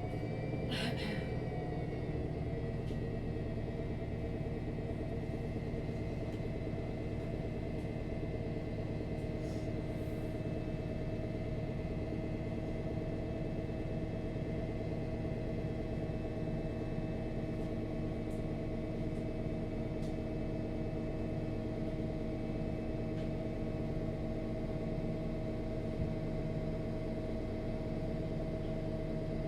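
Cabin sound of a MAN NG 313 CNG articulated, natural-gas-powered city bus: the engine and drivetrain running steadily with a low rumble and a steady whine that holds one pitch throughout.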